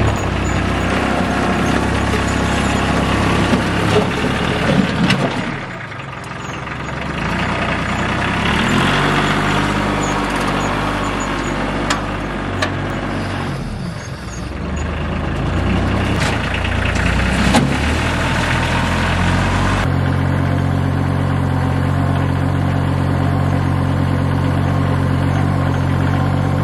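Compact tractor engine running as it pulls a rear-mounted rotary tiller through gravel, its level rising and falling with the load, with a few sharp knocks from the stones. About twenty seconds in, this gives way to a steady engine drone.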